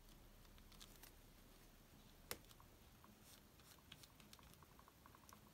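Near silence, with faint scattered clicks and taps of hands handling paper and a plastic glue bottle on a cutting mat, and one sharper click a little over two seconds in.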